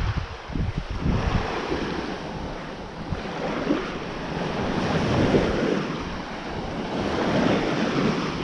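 Small sea waves washing ashore, swelling and ebbing, with a light breeze buffeting the microphone.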